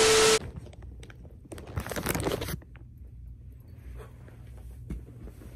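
Rustling, crunching handling noise as a phone camera is moved and set in place among clothes, with a louder burst of rustling a second and a half in and faint knocks after. It opens with a short loud hiss carrying a steady tone.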